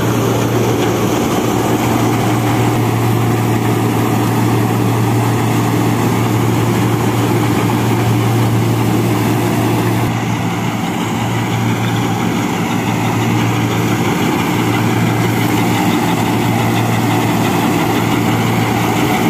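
Turbocharged Mahindra Arjun Novo 605 tractor engine running steadily under load as it drives a straw reaper through the PTO. The heavy diesel drone is mixed with the reaper's threshing and the rush of chopped straw blown through its chute.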